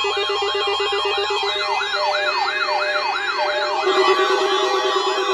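Electronic siren sounds: a tone sweeping up and down about twice a second, layered over steady held tones and a fast-pulsing low buzz. The sweeps quicken and thin out a little before the end.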